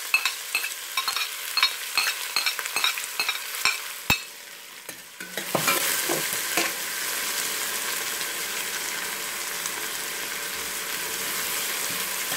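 Diced onions frying in hot oil with cumin seeds in a stainless steel pot, stirred with a spatula. Quick clicks and scrapes of the spatula against the pot for the first four seconds, then from about five seconds in a steady sizzling hiss.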